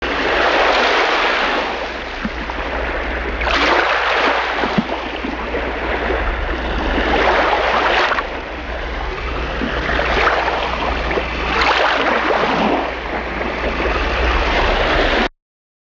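Sea waves washing onto the shore, the surf swelling and easing every few seconds over a steady low rumble, cutting off abruptly near the end.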